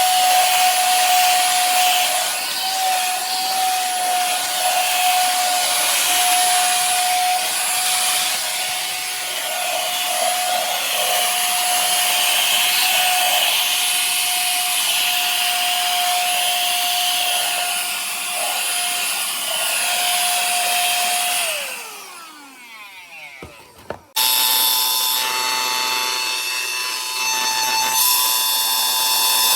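Tiazhan cordless handheld vacuum cleaner's motor running with a steady whine over a hiss of rushing air. About three-quarters of the way through it is switched off and its pitch falls as it spins down. A couple of seconds later a whirring with several steady tones starts abruptly.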